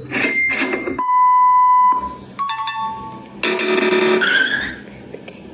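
A quick string of short comedy sound effects: a steady beep lasting about a second, then a few shorter tones, a buzzy note and a short rising whistle-like glide.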